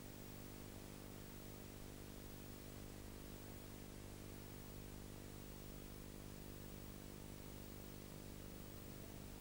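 Faint steady hiss with a low, constant hum: background noise of the soundtrack, with no sound of the trucks or the rock being dumped.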